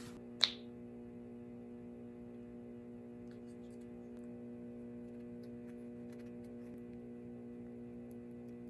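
Steady electrical hum, with one sharp click about half a second in and a few faint light ticks later.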